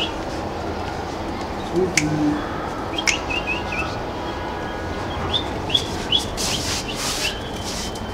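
Small birds chirping in short high, upward-flicking notes: a cluster of chirps a few seconds in and more near the end. There are a few sharp taps in between, over a steady background hum.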